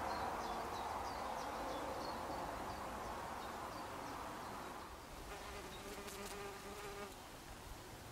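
Bumblebee buzzing as it forages on chive flowers, a hum that slowly fades, with a clearer, higher drone from about five seconds in. Short high chirps repeat about three times a second in the first half.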